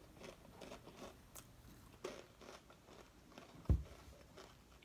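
Faint crunching and chewing of Takis rolled tortilla chips, a run of small crackly crunches, with one sharp low thump about three-quarters of the way through.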